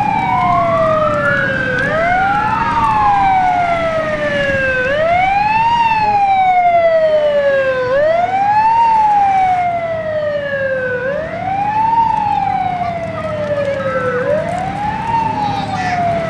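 Fire engine siren on a wail cycle: the tone climbs quickly and slides slowly back down, repeating about every three seconds, with two sirens overlapping at first, then one. A low engine rumble runs underneath.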